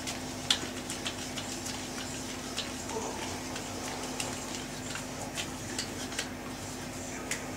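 Scattered faint light clicks and taps, like small hand-tool and pipe handling, over a steady low electrical hum.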